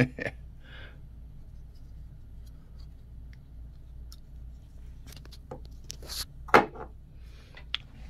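Several sharp metallic clicks as a folding pocket knife's blade and lock are worked and the blade is folded shut, the loudest about six and a half seconds in, over a faint steady room hum.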